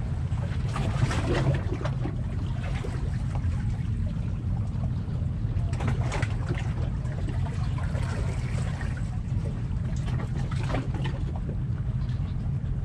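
Steady low rumble of wind on the microphone, with small waves lapping and splashing against rocks now and then.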